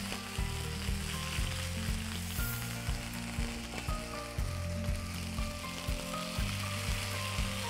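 Tilapia fillet frying in hot oil in a pan, a steady sizzle, over background music with a steady beat about twice a second.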